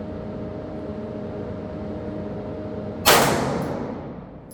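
A single 9mm gunshot from a Foxtrot Mike FM9 AR-style pistol about three seconds in, ringing off over about a second.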